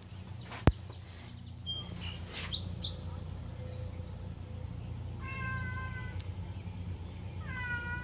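Siamese cat meowing twice with a woodpecker held in its mouth: one meow of about a second about five seconds in, a second starting near the end. A single sharp click comes just under a second in.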